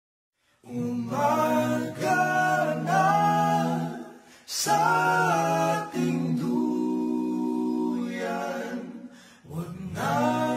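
Voices singing in harmony without instruments, in sustained phrases with two short breaths between them, after a moment of silence at the start.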